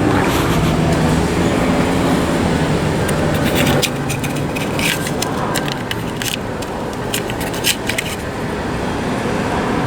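Street traffic running steadily, with a vehicle's low hum for the first few seconds, and a run of sharp clicks and scrapes from about three seconds in to about eight seconds in.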